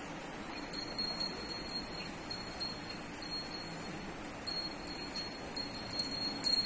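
Small metal bell on a cow's neck collar tinkling on and off as the cow moves its head, a clear high ring heard in repeated short bursts from about half a second in.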